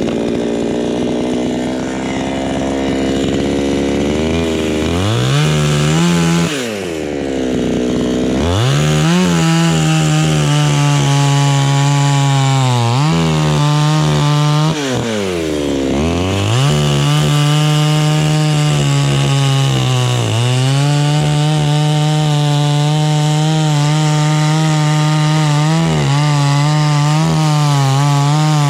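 Chainsaw running at full throttle, cutting into jackfruit wood. Its high engine note drops briefly and climbs back several times as the throttle is eased off and opened again.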